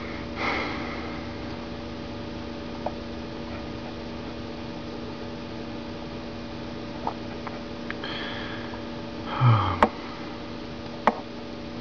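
Steady electrical mains hum. A short breathy noise comes about half a second in, a louder brief noise comes near the end, and two sharp clicks fall in the last two seconds.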